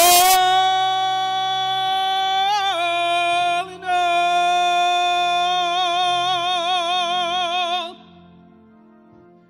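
A solo gospel voice slides up into a long, loud held high note, dips slightly and breaks off briefly partway through, then sustains it with a widening vibrato before stopping near the end. Steady low organ tones sound underneath.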